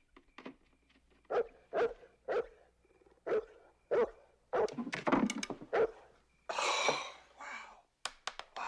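Dogue de Bordeaux giving a series of short, deep barks, most about half a second apart, with a longer hissing rush a little after the middle and a few sharp clicks near the end.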